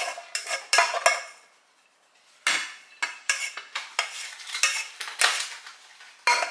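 Rice paddle scraping and knocking against the inside of an aluminium rice-cooker pot as cooked rice is scooped out: a run of short, sharp scrapes, with a pause of about a second after the first second.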